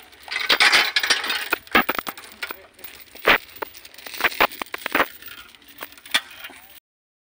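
Wood crunching and cracking: a crunchy rustle in the first second or so, then a string of sharp separate knocks and cracks. It cuts off abruptly near the end.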